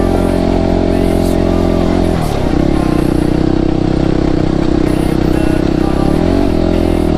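Motorcycle engine running under way on a flat dirt track, holding a steady note. About two seconds in, its pitch dips and then settles at a new steady note.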